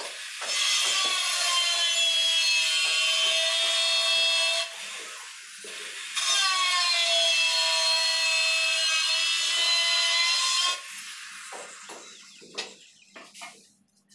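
Electric tile cutter (angle-grinder type) cutting through a floor tile in two passes of about four seconds each, a high whine that dips slightly in pitch as the disc bites in. A few light knocks and scrapes follow near the end.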